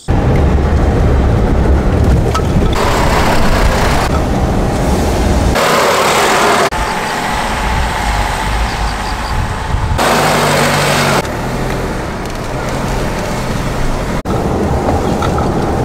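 A car driving: steady road and engine rumble with a rushing hiss. It changes abruptly several times where short clips are cut together.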